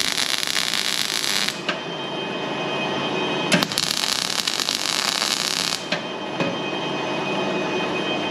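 Gas-shielded MIG welding arc from a Snap-on welder, crackling and sizzling in two runs: one of about a second and a half, then another of about two seconds after a short pause.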